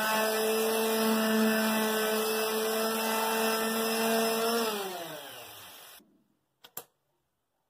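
Electric palm sander running steadily against a wooden panel, then switched off about four and a half seconds in, its motor hum falling in pitch as it winds down. Two short clicks follow near the end.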